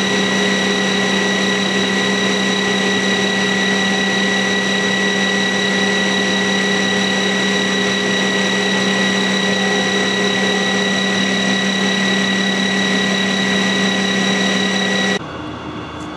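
Fecon forestry mulcher running on its tracked carrier, with the rotor spinning at speed on a balance test run after a correction weight was welded on. It makes a steady, even hum with a high whine over it, and cuts off suddenly near the end.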